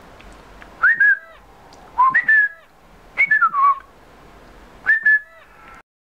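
Four short bursts of whistled notes about a second apart, each rising or falling into a held note, whistled at a tablet to set off a whistle-activated cartoon-bird app.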